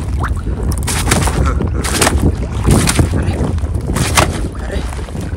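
Wind buffeting the microphone in a steady low rumble, with a few short, sharp noises about a second apart.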